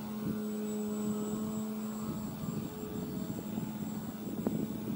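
E-flite Timber RC plane's electric motor and propeller humming overhead in flight, a steady tone that weakens about two seconds in.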